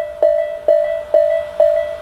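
Electronic level-crossing warning bell of a Tobu Railway crossing, in the tone the railway calls Tobu sound A, ringing steadily with a single-pitched ding about twice a second: the alarm that a train is approaching the crossing.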